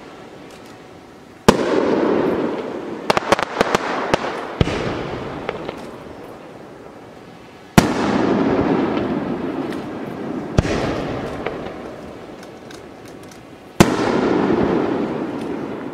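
Aerial firework shells bursting overhead: three loud booms about six seconds apart, each followed by a long rolling echo. Softer bangs fall between them, with a burst of crackling about three seconds in.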